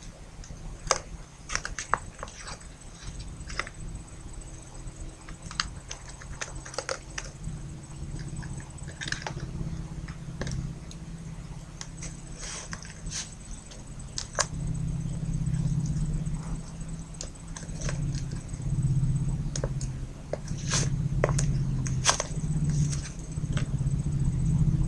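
Scattered light clicks and crinkles of a tape-covered paper pistol model being handled, its paper magazine slid in and out of the grip, over a faint steady high whine; a low rumble grows louder about halfway through.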